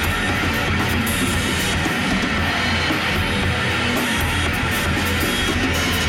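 Drum kit played in a heavy rock groove, kick drum and a steady wash of cymbals going without a break.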